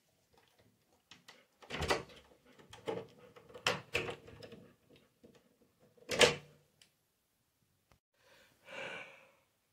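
A few separate knocks and clunks of a wooden door being handled and shut, the loudest a little after six seconds, then a short soft rustle near the end.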